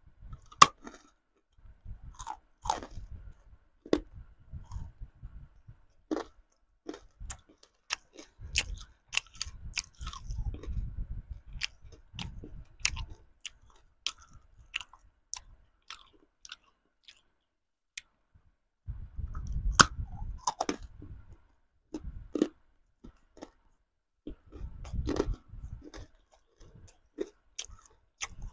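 A person biting and chewing lollipops close to a microphone: sharp cracks and crunches with bouts of chewing, and a pause of a few seconds past the middle.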